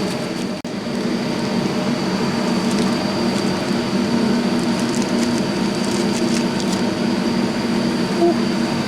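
Steady mechanical hum with a thin high whine running under it, a few faint light clicks, and a brief sharp dropout about half a second in.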